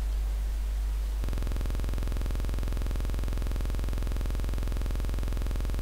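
Loud, steady electrical mains hum. About a second in it abruptly turns into a harsh, even buzz that stays steady.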